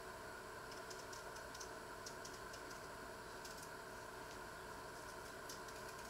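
Small kitchen knife peeling potatoes by hand: faint, irregular small clicks and scrapes of the blade on the potato and its skin, over a steady faint hum.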